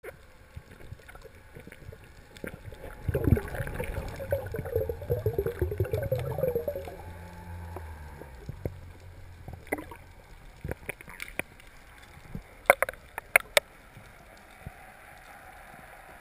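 Underwater sound picked up by a diver's camera: a loud swell of wavering, gurgling water noise for a few seconds, followed by quieter water noise and several sharp clicks.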